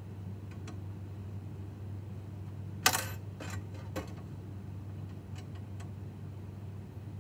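Small metallic clinks from VEX steel parts, screws and hex nuts being handled while a plate is fastened to the framework: one sharp clink about three seconds in, then a few lighter clicks and faint ticks.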